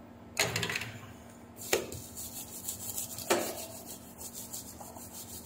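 A toothbrush scrubbing a small circuit board with quick back-and-forth strokes, several a second, making a dry scratchy rubbing. There are a few louder knocks among the strokes.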